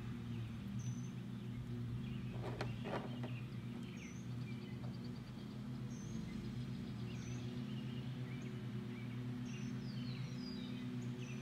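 Small birds chirping repeatedly, short high calls every second or two, over a steady low hum, with a brief pair of clicks about two and a half seconds in.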